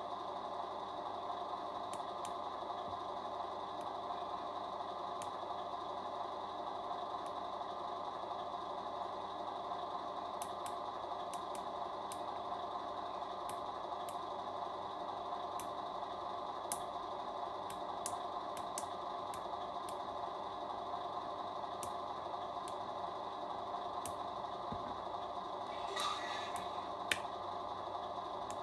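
RC Volvo FH16 model truck's electronic sound unit playing a steady diesel-engine idle through its small speaker. Faint sharp clicks are scattered through it, with a brief louder rattle near the end.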